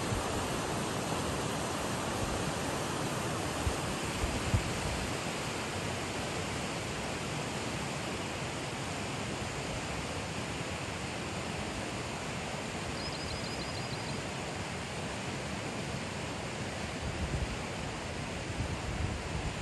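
Steady rush of a shallow rocky river running over stones. About four seconds in there are a couple of brief knocks, and a short high bird trill of quick rising notes comes partway through.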